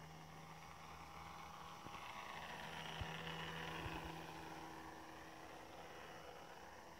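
Brushless electric motor and 10x6 propeller of a Depron foam RC Nieuport 11 flying past: a faint whine that swells and bends in pitch as the plane passes, loudest about three seconds in.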